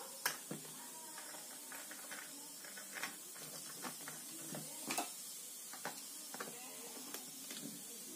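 Faint, scattered small clicks and taps of hand tools and wire ends being worked at the brass terminals of an electrical switch-and-socket board, a sharper click about every half second to second.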